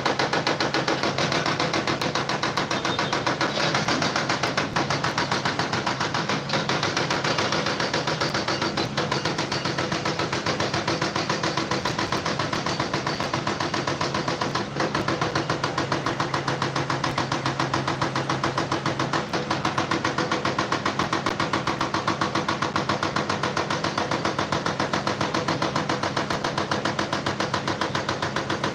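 A machine running with a fast, even rhythm of many beats a second, steady in pace and loudness.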